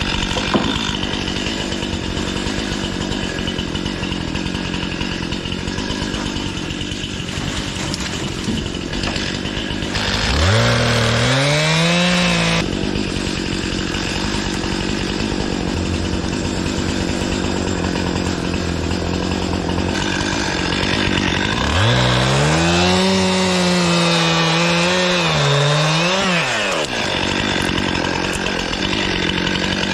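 Stihl MS 261 C two-stroke chainsaw running near idle. The throttle opens twice: the pitch rises briefly about ten seconds in and drops off suddenly, then rises again about twenty-two seconds in and holds for about five seconds, wavering up and down.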